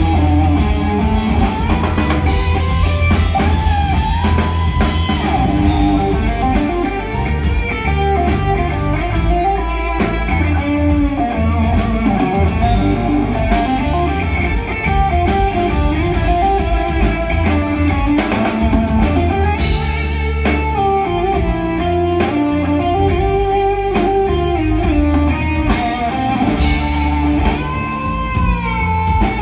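A live instrumental rock trio playing loudly: an electric guitar carries the lead melody over bass and a drum kit. The guitar's held notes slide up and down in pitch with string bends.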